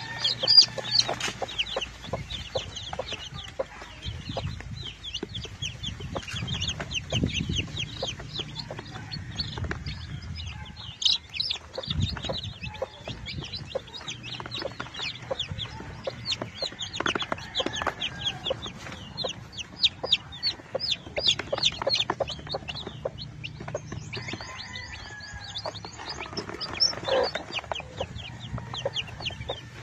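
A brood of native chicken chicks peeping continuously, many short, high, falling peeps overlapping one another.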